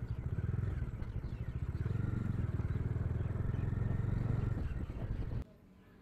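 Bajaj Dominar 400's single-cylinder engine running at low speed with a steady, fast exhaust pulse as the motorcycle pulls into a fuel stop. The sound stops abruptly near the end.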